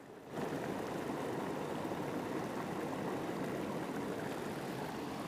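Small mountain stream running steadily, its flowing water coming up over the first half second and then holding.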